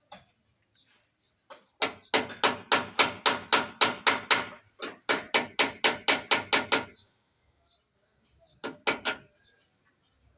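Rapid hammer strikes, about five a second, in two runs of a couple of seconds each, then three more strikes near the end.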